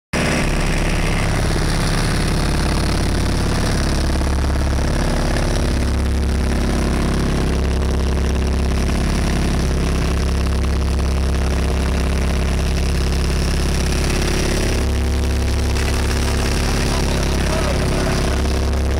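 Boat engine running steadily: a deep, even drone that holds throughout.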